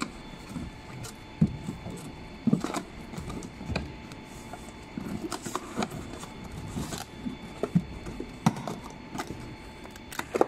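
Irregular clacks, taps and knocks of a PP hollow corrugated plastic sheet being folded into a box by hand, its flaps bent and pressed into place.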